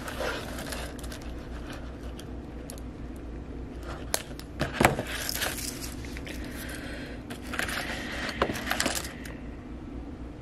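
Pliers and hard-plastic lures handled on a tabletop while the tag end of a mono leader is trimmed: small metallic clinks and a few sharp clicks, two about four to five seconds in and two more near the end. A faint steady hum runs underneath.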